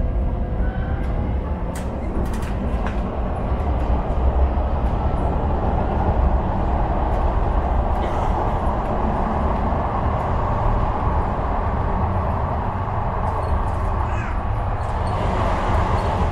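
Sheffield Supertram heard from inside the car: a steady low rumble of wheels on rails, with the traction motors' whine rising in pitch as it gathers speed in the first couple of seconds. Near the end the noise swells briefly as another tram passes close by.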